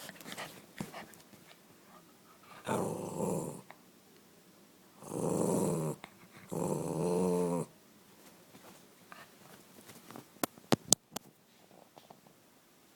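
Small white dog growling three times, each growl about a second long, followed by a few sharp clicks a little before the end.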